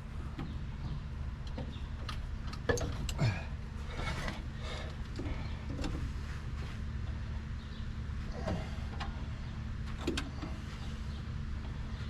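Hand tools working on metal fasteners under a pickup's dashboard: scattered clicks, light knocks and short scrapes, over a steady low hum.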